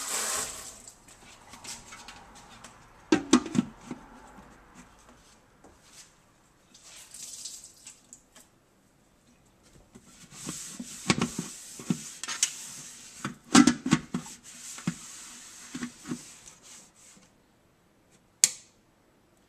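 Scattered knocks and clunks as the lid is handled and fitted onto a Ninja Cooking System pot, then a single sharp click near the end as its control dial is turned.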